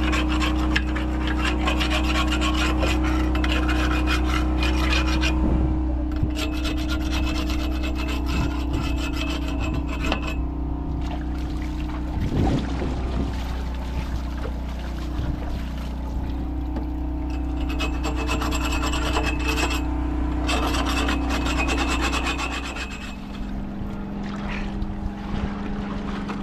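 Rasping scrape of a wooden bangka hull being scraped clean of moss and old growth, in several long stretches broken by pauses. A steady low machine hum runs underneath and stops about 23 seconds in.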